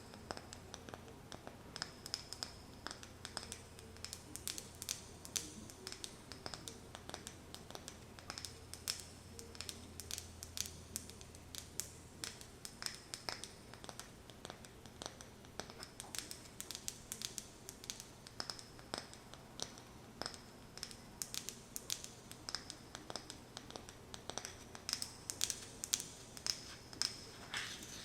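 Fingernails tapping and scratching on a wooden lid: many quick, irregular light clicks, several a second.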